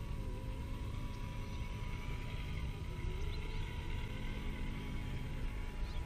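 Electric drivetrains of Axial Honcho and Deadbolt RC rock crawlers whining faintly as they drive through a shallow puddle, over a steady low rumble.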